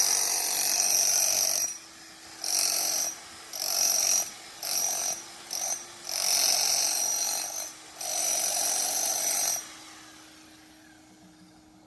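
Bosch handheld electric jackhammer chipping plaster off a pool surface, run in about seven short bursts that start and stop, then falling quiet about ten seconds in.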